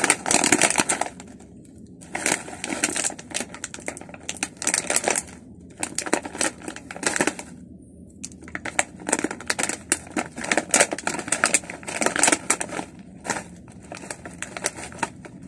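Foil snack bag of potato chips crinkling loudly in bursts, with short pauses between, as it is squeezed and worked open by hand.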